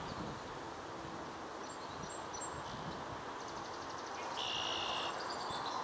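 Outdoor background noise, with faint, thin, high calls of small birds: a few short notes about two seconds in, a quick run of notes a second later, and a brief steady high note a little after four seconds.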